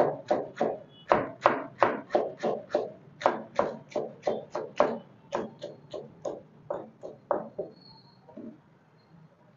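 Knife chopping vegetables on a plastic cutting board: a steady run of knocks, about three a second, that stops about seven and a half seconds in.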